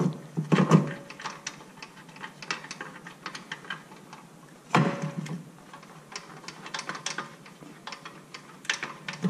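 Light metal clicks and taps, with louder knocks about half a second in and near the five-second mark: a rear hub bearing assembly being wiggled against the knuckle so that a bolt from behind catches its threads.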